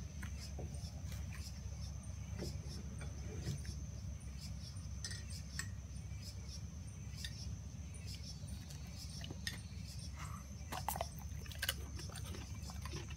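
Light metal clinks of a dog's collar tags jingling as a Bullmastiff shifts its head, scattered and faint, with a small cluster near the end, over a steady low hum.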